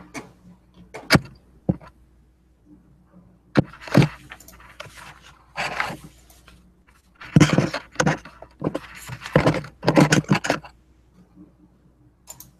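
A few sharp clicks, then irregular rustling and clattering handling noise for several seconds, which dies away near the end.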